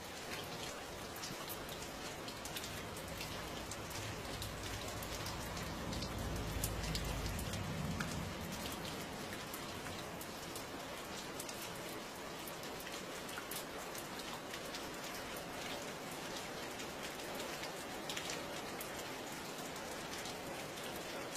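Steady rain falling, with many individual drops pattering as sharp ticks. A low rumble swells and fades about four to eight seconds in.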